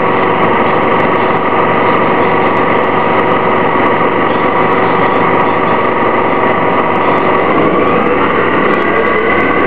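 Detroit Diesel Series 50G natural-gas engine of an Orion VII CNG transit bus idling steadily, its note starting to rise near the end.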